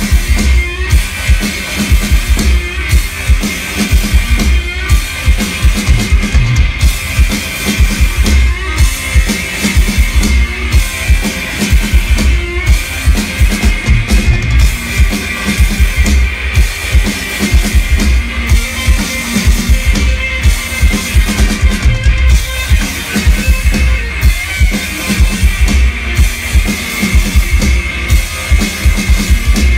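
Live rock band playing an instrumental stretch: drum kit beating steadily under distorted electric guitar, with no vocals.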